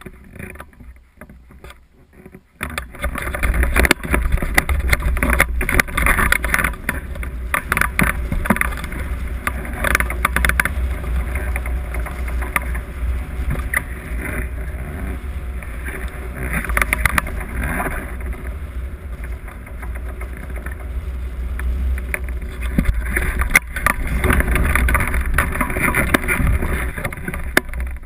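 Wind rushing and buffeting on the microphone of a camera mounted on a hang glider during its launch run and low flight: a steady rush with a deep rumble and gusts, picking up sharply about two and a half seconds in.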